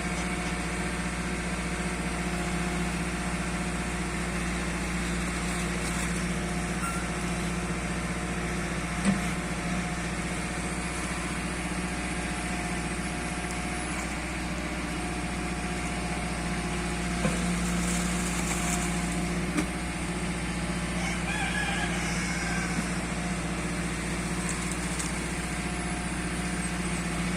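Diesel engine of an RJMT S-3216 backhoe loader running steadily, with a few short knocks along the way.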